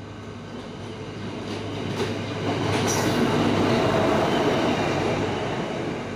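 Yellow State Railway of Thailand track vehicle passing close on the near track: rumble of its wheels on the rails, swelling to its loudest about three to four seconds in and dying away toward the end, over a steady low hum.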